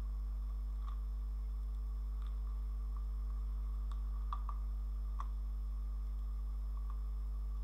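A steady low hum, with about eight light computer-mouse clicks scattered through it, the loudest a close pair about four and a half seconds in and one near five seconds in.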